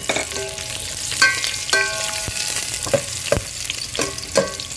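Sliced ginger and onion sizzling in hot oil while a metal spoon stirs them, knocking and scraping against the pot. The knocks come every half second to a second, several with a short metallic ring.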